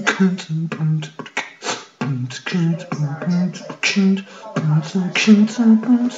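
A man beatboxing: short pitched voiced syllables alternating with sharp hissing and clicking mouth sounds at a quick, steady beat, in the 'boots and cats' style.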